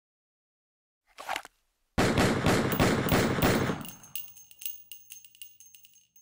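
Machine-gun burst sound effect: a short noise, then a sudden run of rapid shots about two seconds in, thinning out into scattered metallic clinks with a ringing tone, like spent shell casings falling and bouncing.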